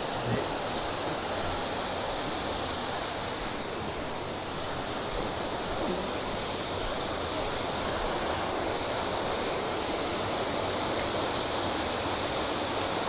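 Horseshoe Falls, a cascading waterfall, giving a steady rush of falling water.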